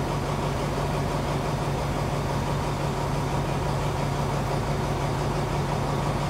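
Alsthom diesel-electric locomotive's engine idling steadily with an even low hum.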